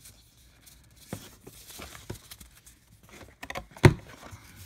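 Baseball cards being handled: soft rustles and small clicks of stiff card stock as a stack is sorted, with a quick run of ticks and then one sharp tap a little under four seconds in.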